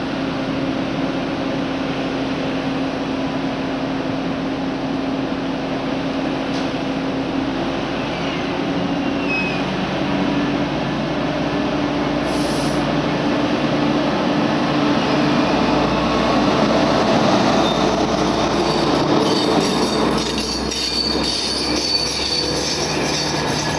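Adtranz class 220 diesel-electric locomotive running at a station, then starting its passenger train, which grows louder about halfway through. The carriages then roll past with thin, high wheel squeal.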